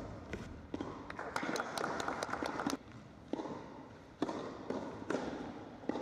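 Tennis rally on an indoor carpet court: sharp racquet-on-ball strikes and ball bounces mixed with quick running footsteps, echoing in a large hall. Several louder knocks come in the first half, and a few more single thuds follow later.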